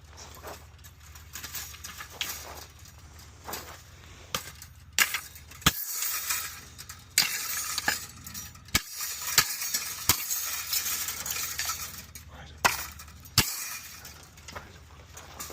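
Hard objects clinking and clattering as they are handled, with a dozen or so sharp knocks, busiest in the middle.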